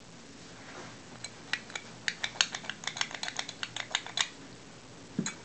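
Metal pull-handle hardware clicking and clinking as it is handled: a quick run of sharp clicks for about three seconds, then a soft thump near the end.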